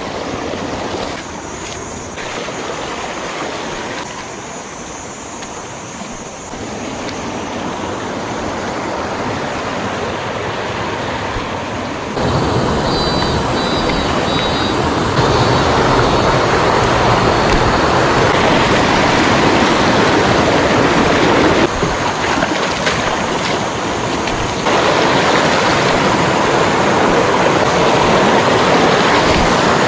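Rushing water of a small rocky stream pouring through shallow rapids and little cascades between boulders: a steady rush that gets louder in steps after about twelve seconds.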